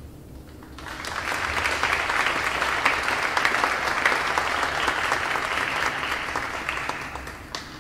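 Audience applauding, beginning about a second in and dying away near the end.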